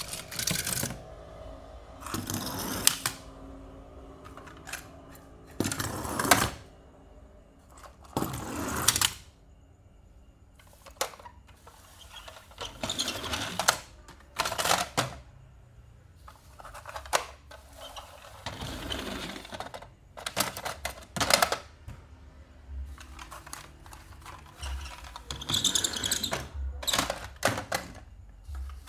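Die-cast toy cars and plastic toy trailers clattering and knocking against each other and a plastic bin as they are rummaged and set down: a string of short clicks and rattles with a few longer scraping stretches.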